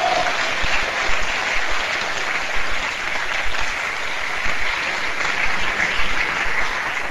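Members of the parliamentary chamber applauding at the close of a speech, a steady, dense clapping.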